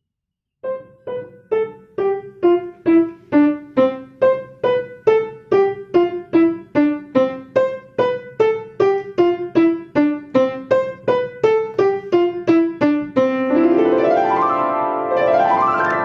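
Piano playing a short student piece: single notes alternating between two pitches, struck about two a second, then about 13 s in the sound blurs together and rising sweeps run up the keyboard, three times.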